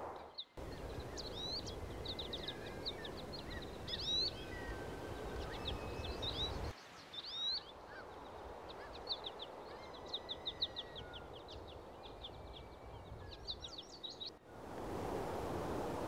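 Several small birds singing and calling: quick chirps and short rapid trills, repeated throughout, over a faint steady outdoor hiss. The background cuts abruptly about half a second in and again about halfway through, where it drops quieter, as between spliced recordings.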